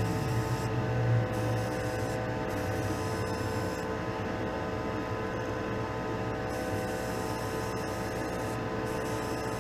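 Hobby spray booth's exhaust fan running with a steady electric hum, a drone of several unchanging tones.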